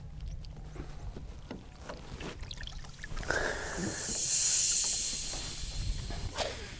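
A cast with a baitcasting rod and reel: a short swish, then fishing line running off the spinning spool as a high hiss that swells and fades over about two and a half seconds, with a brief sharp sound near the end as the lure lands. A low steady rumble sits underneath throughout.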